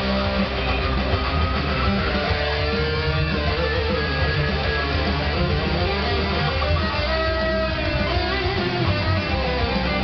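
Electric guitar playing a metal song, a thick low end under lead notes, some of them gliding in pitch.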